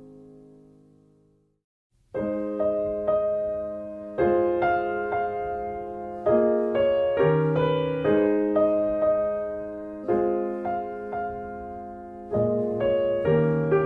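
Solo piano background music: a held chord dies away to a brief silence, then a gentle melody of struck notes and chords begins about two seconds in and carries on.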